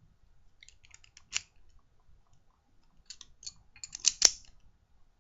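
Light metal clicks and rattles of a Silverline padlock being handled: a few clicks about a second in, then a quick run of clicks from about three seconds, ending in one sharp, loud click a little after four seconds.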